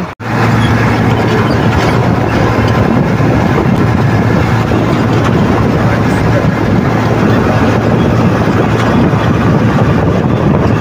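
Sonalika DI 35 tractor's three-cylinder diesel engine running steadily under way, heard from the driver's seat. It cuts in after a brief gap just after the start.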